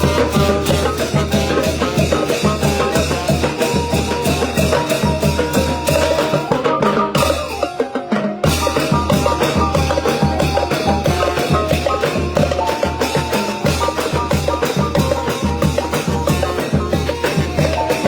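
Thai brass band (trae wong) playing a lively tune over a steady bass-drum beat. The drums break off for about a second around seven seconds in, then come back.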